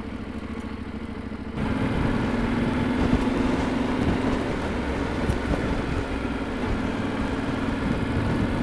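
Yamaha Ténéré 700's parallel-twin engine running steadily as the bike rolls along a trail. About a second and a half in, the sound abruptly gets louder, with the engine pulling and a rush of wind and road noise over it.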